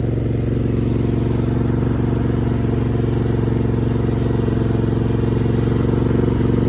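Craftsman riding mower's Kohler V-twin engine running steadily as the mower is driven along at a slow, even speed.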